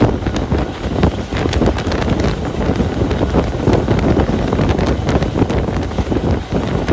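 Moving train running at speed: wheels clattering with irregular knocks over the rails, and wind buffeting the microphone.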